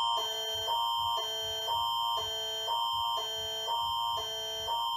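Canadian Alert Ready alerting attention signal: two electronic tone chords alternating every half second over a steady high tone, announcing an emergency alert.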